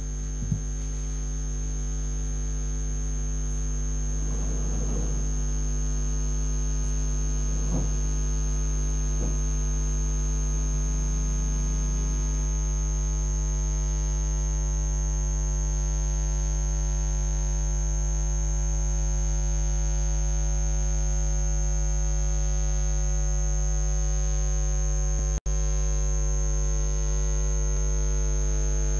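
Steady electrical mains hum with a thin, high whine over it, unchanging throughout. The sound cuts out for an instant about three-quarters of the way through.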